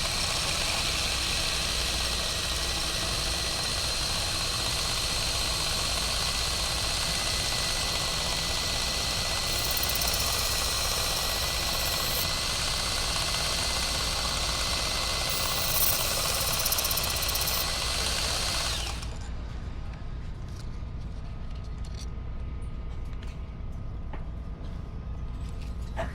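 Motorized knife sharpener grinding a blade: a steady abrasive hiss with a high whine, which stops suddenly about three-quarters of the way through. A low steady hum continues underneath.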